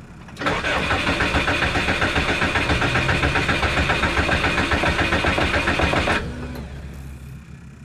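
Subaru engine cranking on the starter motor with an even, rapid pulsing, without catching: the no-start being diagnosed. It begins about half a second in and cuts off abruptly after about six seconds.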